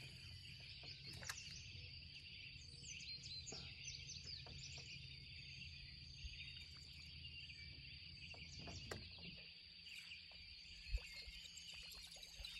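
Faint morning outdoor ambience: a steady insect drone with scattered bird chirps over it. A low hum fades out about nine seconds in, and there is a single short knock near the end.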